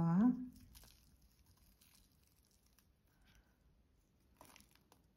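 Faint rustling and light crackling of fingers handling moist potting soil and strawberry seedlings, separating the small plants from a clump of earth. There is a short cluster of rustles about four and a half seconds in.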